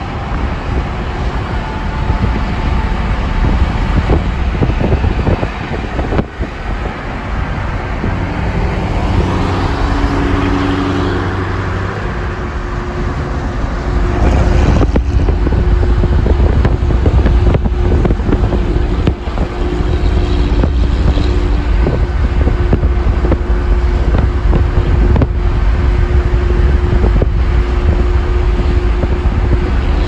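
A car driving, heard from inside the cabin: engine and road rumble, growing louder about halfway through as the car picks up speed.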